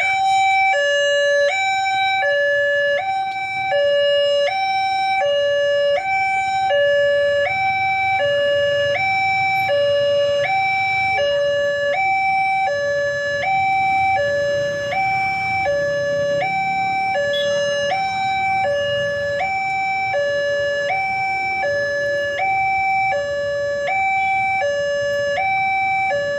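Two-tone hi-lo siren alternating evenly between a high and a low note, about one high-low cycle a second, with a faint low rumble beneath.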